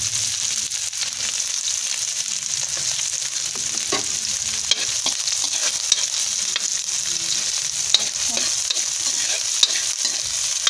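Chopped onion and garlic sizzling steadily in hot oil in a wok, being stirred, with a few sharp scrapes and taps of the spatula against the pan.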